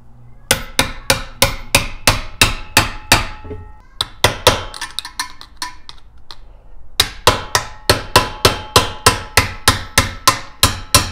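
Hammer tapping a flathead screwdriver wedged into the seam of an engine's cast timing cover, driving it in to pry the cover loose. Sharp metallic strikes with a short ring, about three a second, in three runs with brief pauses between.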